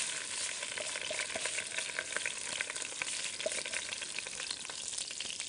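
Soaked, washed rice sizzling as it is tipped into hot oil and ghee in a stainless steel pot, a steady hiss dotted with many small crackles.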